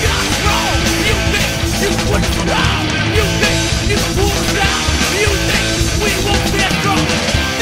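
Street punk rock music: a full band with electric guitar, bass and drums playing loud and steady.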